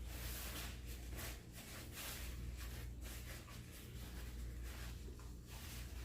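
Close-miked chewing and mouth sounds of someone eating, soft noisy bursts about once or twice a second over a steady low hum.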